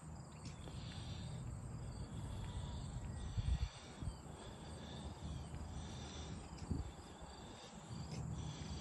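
Faint crickets chirping steadily over a low rumble, with a few soft thumps a few seconds in and again near the end.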